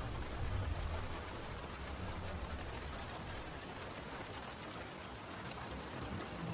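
Steady rain falling, an even hiss, with a low rumble dying away about a second in.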